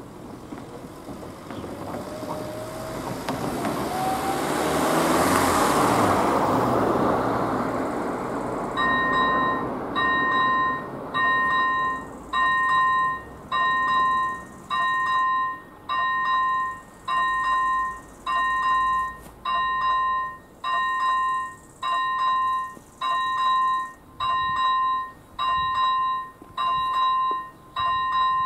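A car drives past, loudest about five seconds in. About nine seconds in, the level crossing's AŽD 97 first-generation electronic warning bell starts up. It sounds a short two-tone electronic ding about once a second, the warning that a train is approaching.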